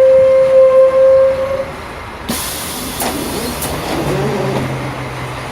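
A loud, steady single-pitched tone that cuts off about a second and a half in, followed by a steady hiss with a low hum under it, aboard a city bus.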